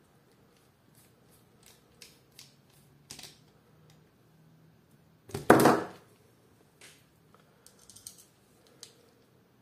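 Small metallic clicks and ticks of revolver parts being handled and fitted together, with one loud knock about five and a half seconds in as a metal part is set down on the tabletop, then a few faint scratchy ticks from the screwdriver near the end.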